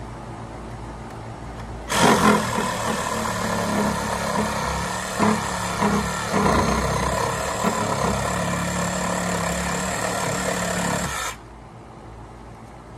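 Cordless reciprocating saw cutting the top off a wooden fence post. It starts suddenly about two seconds in, runs steadily for about nine seconds and stops abruptly.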